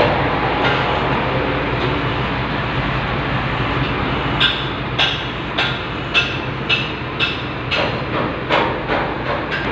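Steady mechanical running noise with a low hum. From about halfway through, a regular metallic ticking about twice a second joins in.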